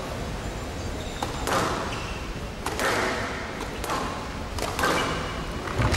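Squash rally: the ball struck by the rackets and smacking off the walls of a glass court, a sharp hit about once a second with a short echo after each. Short squeaks from shoes on the court floor come between the hits.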